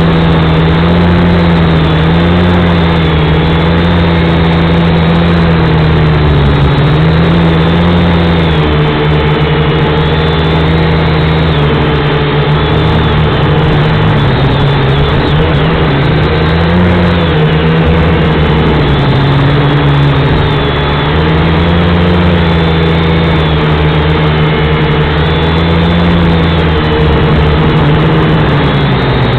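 V222 toy quadcopter's motors and propellers running with a loud buzzing whine whose pitch keeps wavering up and down as the throttle changes in flight.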